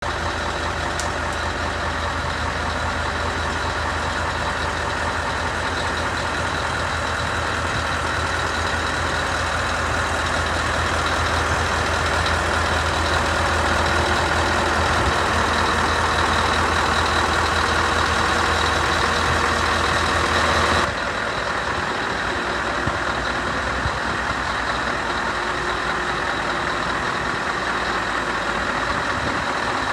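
Scania R560 truck's V8 diesel engine idling steadily. About two-thirds of the way through, the low hum drops away abruptly and a lighter steady running sound continues.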